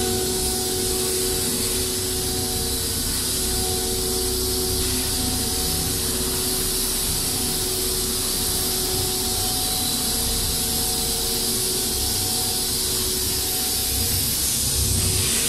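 Running pulp-molding machinery for paper shoe trees: a continuous hiss with a steady mechanical hum underneath, even throughout.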